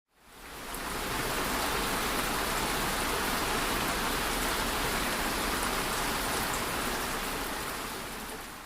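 Steady heavy rain falling, with a few faint drop ticks, fading in at the start and out near the end.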